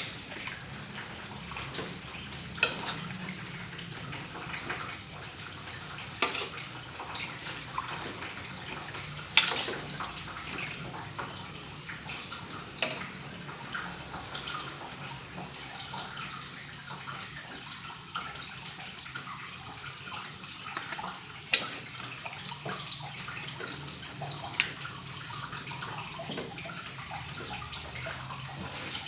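Chicken pieces cooking in spice paste in an aluminium wok, a steady sizzle, with a few sharp clinks and knocks as the pieces are turned and a ladle strikes the wok.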